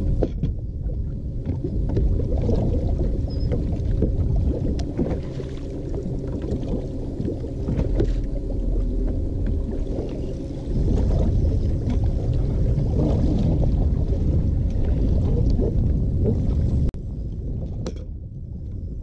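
Wind buffeting the microphone and water slapping against a bass boat's hull, with a steady low hum underneath. The rumble drops suddenly near the end.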